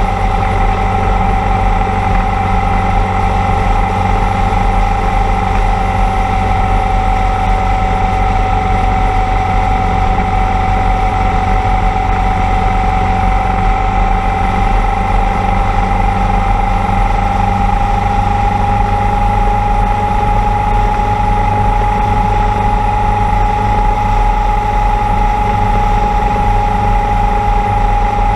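Motorcycle cruising at steady speed on the open road: the engine runs evenly with a steady high whine that rises slightly in pitch in the second half, under constant rushing noise.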